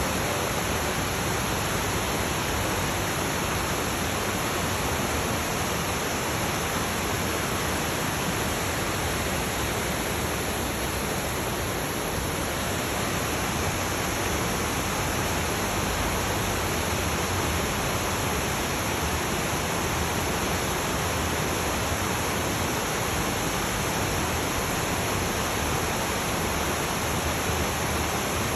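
Rushing water, a steady even rush with no breaks or changes in level.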